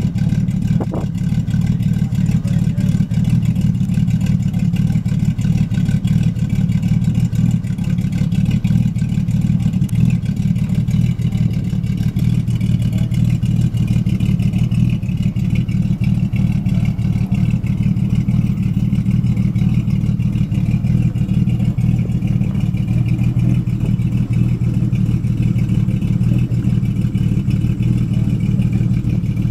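Jeep Cherokee race truck's engine idling steadily, a low, even running sound with no revving.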